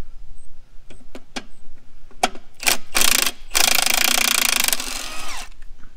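Cordless impact wrench: a few short clicks, then from about three seconds in a loud hammering rattle for about two seconds that winds down near the end. It is spinning a socket forced onto a ball joint's nut to shear off a stuck cotter pin.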